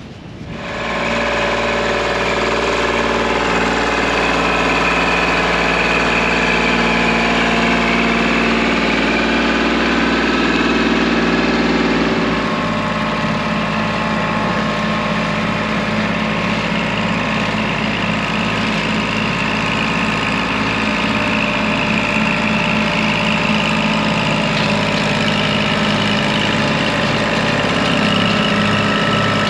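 Kubota compact tractor's three-cylinder diesel engine running steadily while it pulls a rear mower through tall ditch grass and weeds. Its note changes about twelve seconds in.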